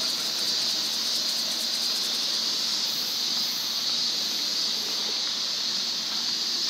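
A steady, high-pitched chorus of cicadas droning without a break, over a soft background hiss.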